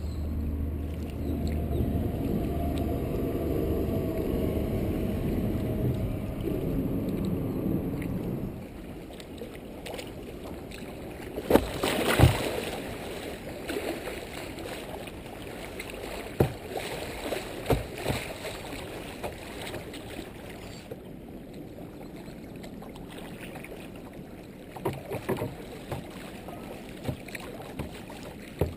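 Kayak moving down a shallow creek riffle: water rushing and splashing around the hull, with scattered knocks and splashes, the loudest about twelve seconds in. For the first eight seconds a steady low drone lies under it, then stops.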